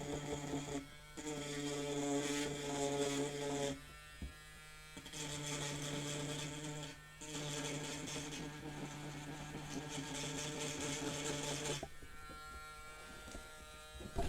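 Small handheld electric rotary tool running in bursts, smoothing the filled seams of a cured resin figure. It runs with a steady hum and briefly stops three times. Near the end it drops to a quieter hum of a different pitch.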